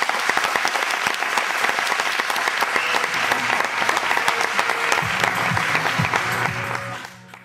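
Audience applauding with dense, steady clapping that dies away near the end. Low held music notes come in about five seconds in.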